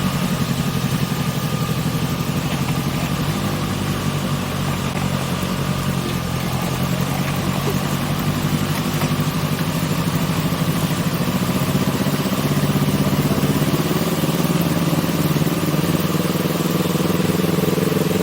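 Sports motorcycle engine running steadily at low revs, ridden slowly. Its note rises a little about two-thirds of the way through.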